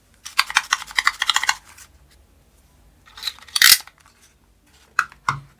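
Plastic toy shotgun being handled and worked: a fast run of small plastic clicks for about a second, then a couple of sharper plastic clacks past the middle and two more clicks near the end.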